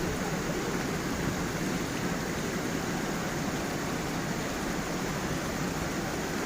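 Water of a small forest waterfall and stream rushing steadily, an even, unbroken wash of sound.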